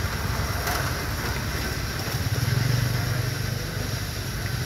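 Road traffic: a steady low engine rumble that swells as a vehicle passes about two seconds in, then eases off.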